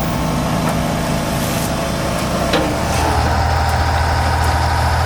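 Heavy diesel engine of a logging truck or forestry machine running, its low rumble growing louder about three seconds in, with a single sharp click or knock just before that.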